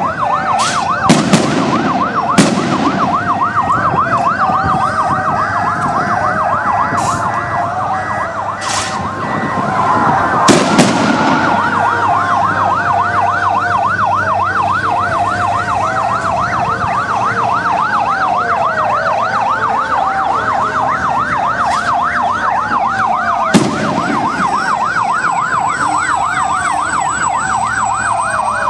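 Several escort vehicles' sirens sounding together, one in a rapid up-and-down yelp with slower falling wails over it. A few sharp loud bangs cut through: a cluster about a second in, a pair near the middle and one more later on.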